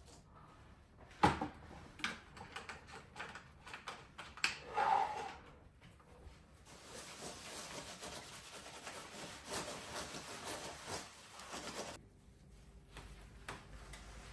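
A few sharp knocks and handling clicks, then a sponge scrubbing back and forth over a laptop keyboard for several seconds.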